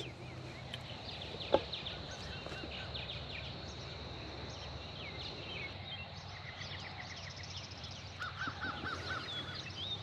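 Wild birds singing and calling over a steady outdoor background, many short chirps throughout. A thin, steady high tone runs underneath. Near the end comes a quick run of about five rising-and-falling notes, and there is one short knock about a second and a half in.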